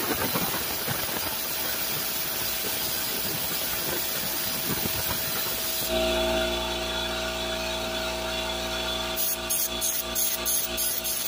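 Compressed air blowing A/C flush solvent out through an evaporator coil: a steady, even hiss that cuts off about six seconds in. A steady hum follows, with a run of rapid clicks near the end.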